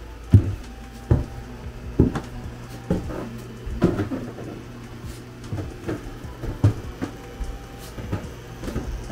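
Footsteps climbing a steep, narrow old wooden staircase, about one step a second, then walking on along the upstairs floor. A steady low hum runs underneath.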